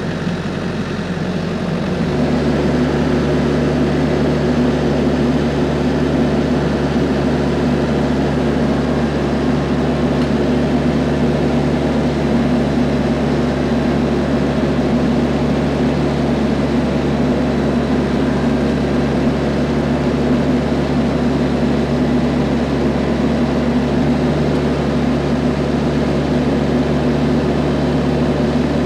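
TYM T474 compact tractor's diesel engine running steadily. The throttle is raised about two seconds in and then held while the engine drives the loader-mounted hydraulic auger drilling a post hole.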